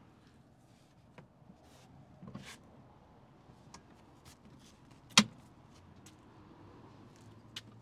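Scattered clicks and knocks of a minivan's interior fittings being handled. There is a soft knock about two seconds in and one sharp, loud click a little past five seconds.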